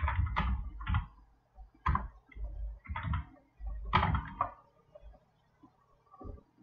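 Computer keyboard being typed on: short keystroke clicks in small clusters, about ten in all over the first four and a half seconds, then stopping.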